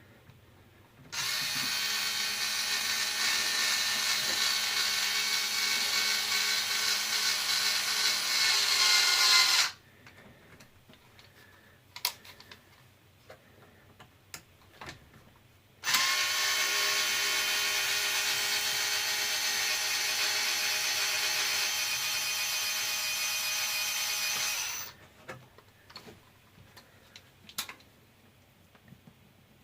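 Small electric screwdriver running in two long bursts of about eight seconds each, turning screws in and out on an RC truck's wheelie bar. The whir rises a little just before the first burst stops. There are a few light clicks in between.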